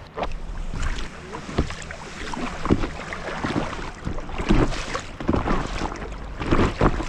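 Water splashing and slapping irregularly against a small craft moving over the sea, with wind rumbling on the microphone.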